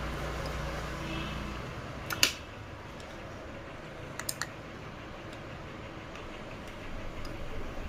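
Clicks from an electromagnetic door lock's access-control hardware being operated: a low hum cuts off, a sharp click follows about two seconds in, and a quick run of three or four small clicks comes about four seconds in.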